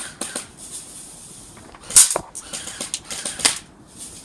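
Airsoft guns firing: one sharp, loud snap about two seconds in, then a quick run of shots a second or so later.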